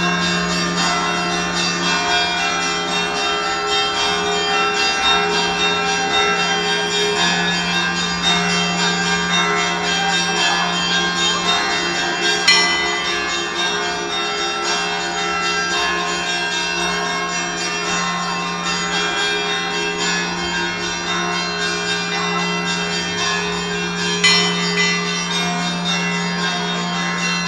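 Russian Orthodox monastery bells of the Zaikonospassky Monastery ringing together: a dense, continuous peal of many bells over a steady low tone, with two sharper, louder strikes, one about twelve seconds in and one near the end.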